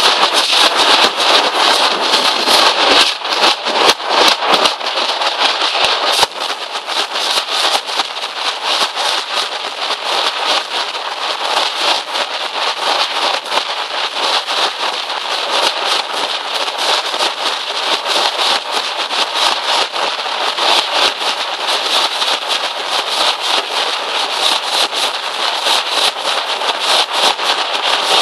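Nashik dhol troupe drumming: many large double-headed dhols beaten together in a fast, dense, unbroken rhythm. The level drops slightly about six seconds in, then holds steady.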